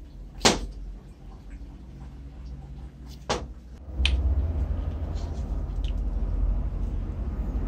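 Metal parts and hand tools knocking together as the depth-adjustment linkage of an old Makita groove cutter is reassembled: a sharp clack about half a second in and a second one about three seconds later. A steady low rumble starts about four seconds in.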